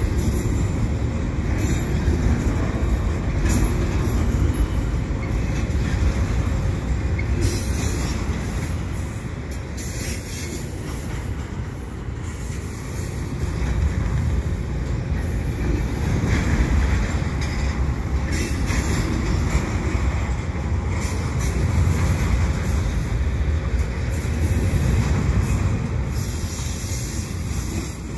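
Double-stack container well cars of a freight train rolling past close by: a steady, heavy rumble of steel wheels on rail that swells and eases, with scattered short clanks and squeals.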